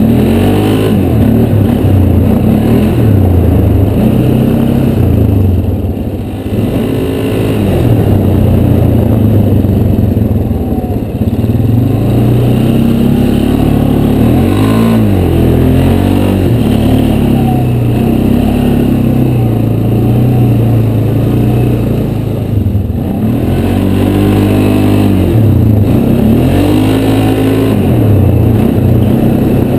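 Polaris ATV engine running under way, its pitch rising and falling again and again as the throttle is opened and eased off.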